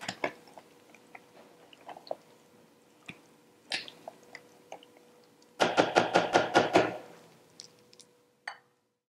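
A spoon working in a Blendtec blender's plastic jar full of thick beet and plum purée: scattered soft clicks, then a quick run of about eight knocks in under a second and a half past the middle as the spoon is knocked against the jar, and a single click near the end as the lid is handled.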